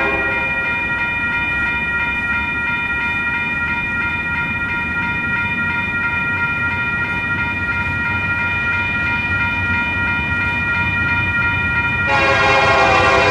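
Approaching diesel freight locomotive's multi-chime air horn held in one long, steady chord over the low rumble of the train; the lower notes drop out about half a second in and come back louder near the end.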